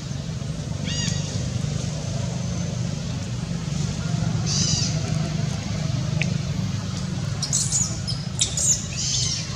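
Short, high-pitched squeaky calls: one about a second in, another near the middle, and a cluster of several near the end. Under them runs a steady low hum.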